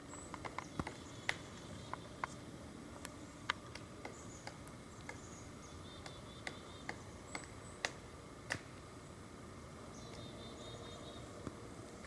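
Pileated woodpecker pecking at wood while foraging: irregular single knocks, about one or two a second, thinning out after about nine seconds.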